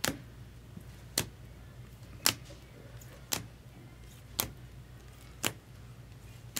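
Sharp taps, evenly spaced about once a second, over a faint low hum: trading cards being laid down one at a time on a table.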